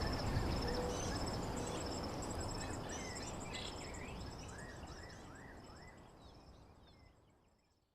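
Outdoor nature ambience: insects trilling steadily and birds chirping over a low rumble, fading out gradually to silence.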